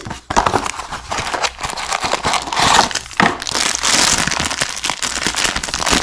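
Thin clear plastic packaging bag crinkling and crackling steadily as it is handled and pulled open.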